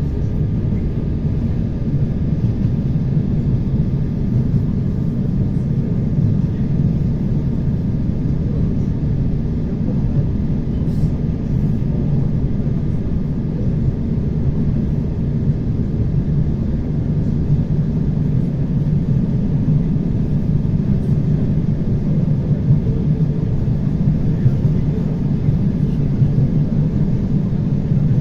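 ER9T electric multiple unit running at speed between stations, heard from inside the car: a steady low rumble of wheels on rail and running gear, with a faint steady whine.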